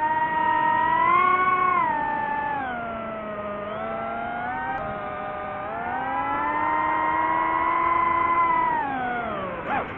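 DJI FPV drone's propeller motors whining in flight, the pitch rising and falling with the throttle. It climbs over the first second, sinks over the next two, rises again around six seconds, then drops near the end with a brief sharp dip and surge.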